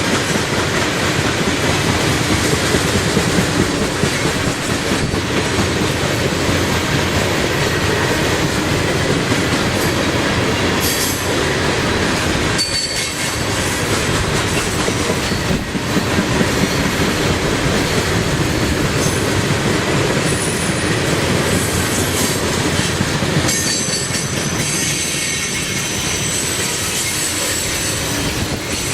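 Coal train cars rolling past with a steady clatter of wheels on rail and occasional high wheel squeal, heard most near the end.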